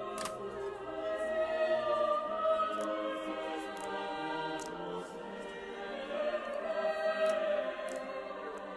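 Choral background music with voices holding long notes. Over it come faint, sharp, irregular clicks and pops of slime being squeezed.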